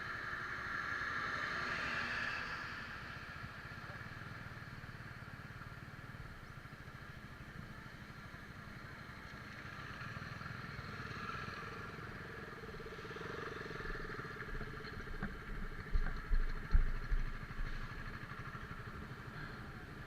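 Motorcycle running steadily on the move, heard from the pillion seat with low rumble and wind noise. Near the end comes a quick run of loud, low thumps.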